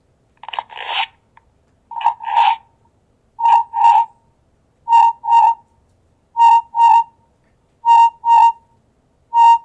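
Audio feedback echo loop between a phone app and the speaker of a Teckin TC100 pet camera. A short spoken phrase keeps coming back about every one and a half seconds as a pair of sounds, and each repeat turns into a purer pair of high beeping tones. It is caused by holding the phone too close to the camera.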